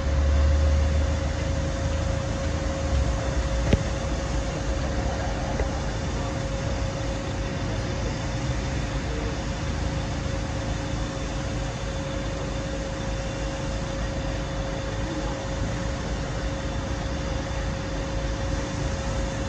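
Steady mechanical hum of a delivery truck idling in the street, with a constant tone. A deeper rumble fades after the first few seconds, and a single click comes about four seconds in.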